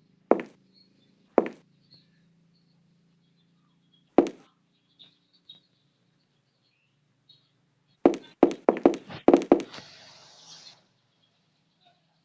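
Short, sharp knocks: a few scattered ones, then a quick run of about eight some eight seconds in, followed by a brief hiss.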